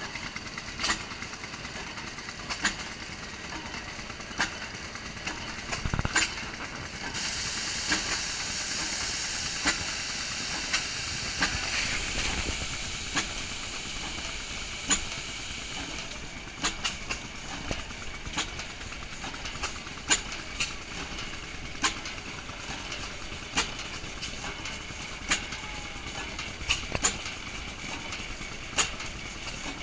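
Large antique stationary flywheel engine running slowly while pumping water, giving one sharp exhaust beat about every second and three-quarters. A hiss comes in for several seconds in the middle.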